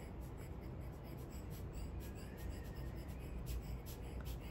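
Rubber bulb air blower squeezed by hand, puffing quick short bursts of air, about three a second, onto wet alcohol ink to spread it across the paper.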